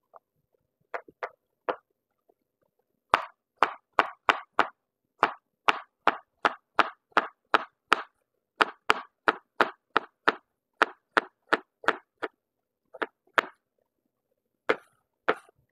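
Kitchen knife chopping cucumber on a wooden cutting board: a run of sharp knocks about three a second, broken by a few short pauses.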